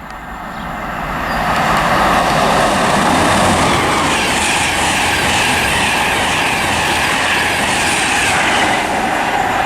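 LNER express worked by a class 90 electric locomotive with Mark 4 coaches coming through the station on the East Coast Main Line. The roar of the train builds over the first second or two and then holds loud and steady as the train runs past.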